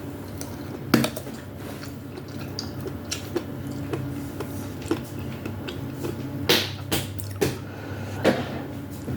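Close-miked eating of soup with meatballs: wet chewing and mouth smacks, with a sharp click about a second in and several louder smacks between about six and eight and a half seconds in.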